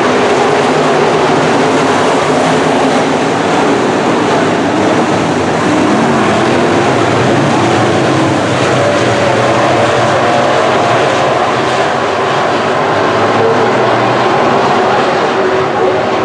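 A field of IMCA Modified dirt-track race cars racing, their V8 engines making a loud, continuous din. Several engine notes rise and fall as the cars pass.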